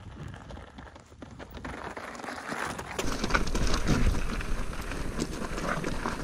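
Mountain bike rolling downhill over a loose rocky trail: tyres crunching and crackling on gravel and stones, with many small clicks and rattles. It gets louder about three seconds in.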